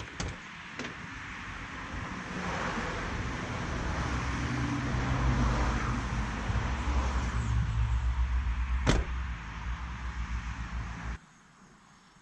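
Truck engine running, building up over the first few seconds, with a sharp click about nine seconds in; the sound cuts off suddenly near the end.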